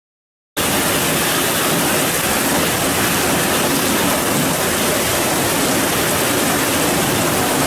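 Silence, then about half a second in a heavy downpour of rain cuts in abruptly: a loud, steady, dense hiss.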